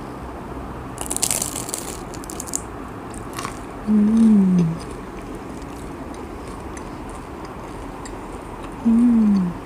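A crunchy bite into an Oreo-topped popia pisang (fried banana spring roll), a quick run of crackling clicks about a second in, followed by chewing. Twice, about four and nine seconds in, there is a short closed-mouth 'mmm' hum falling in pitch, and these hums are the loudest sounds.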